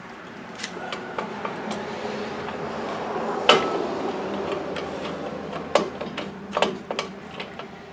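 Metal clicks and clinks of drum brake shoes, springs and hardware being handled and fitted against the backing plate. The sharpest knock comes about three and a half seconds in, with a few more near the end. Underneath is a hiss that swells and then fades.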